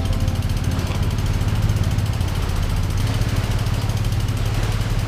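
An engine running steadily at idle, a low hum with a fast, even pulse.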